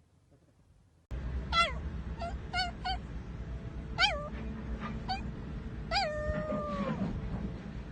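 A domestic cat meowing about seven times, beginning about a second in: a few short meows, then a longer meow near the end that slides down in pitch.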